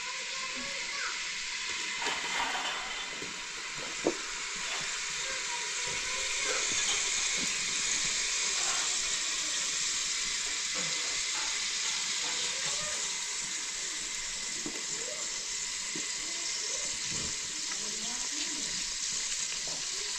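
Steady rushing hiss of water, with faint distant voices underneath and one sharp click about four seconds in.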